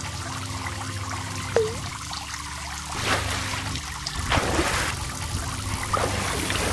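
Water sound effects: steady trickling over a held low tone, with a short plop about one and a half seconds in and splashes around three, four and six seconds in.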